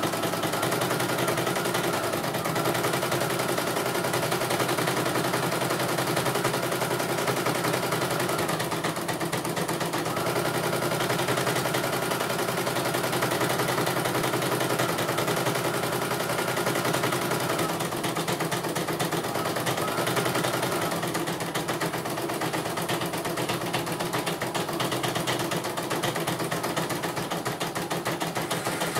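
CNY portable computerized embroidery machine stitching: a fast, even needle clatter with a steady motor whine that drops out briefly twice and stops about three quarters of the way through while the clatter goes on. It is running normally, a machine in which the service centre found no fault.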